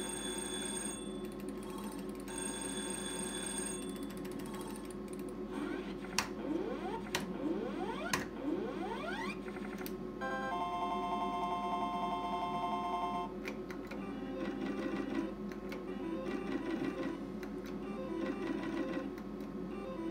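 Novomatic Sizzling Hot slot machine's electronic sound effects: beeping, jingle-like tones for a line win, several rising glides, then a held chord of steady tones for the red-or-black card gamble, then the sounds of the reels spinning. A steady hum runs underneath.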